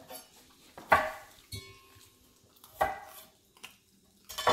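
Siberian husky giving three short barks, about two seconds apart, the first the loudest.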